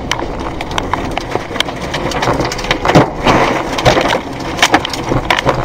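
Heard from inside a car's cabin, violent storm wind blows around the car, while rain and flying debris pelt the windshield and body in many sharp, irregular knocks and cracks.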